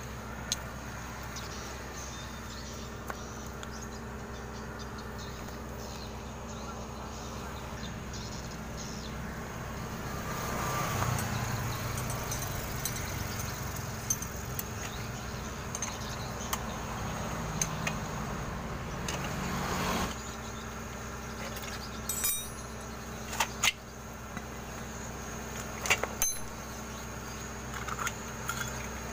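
Metal clinks and taps of a wrench and a motorcycle's rear drive chain being handled as the rear wheel is taken off, mostly in the second half. Under them runs a steady low hum, and a louder rushing noise swells up near the middle and stops abruptly.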